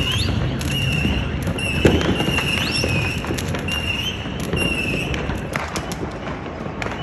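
Fireworks popping and banging, with one sharp bang about two seconds in, over a car alarm's repeating tone that rises and then holds, about once a second, stopping about five seconds in.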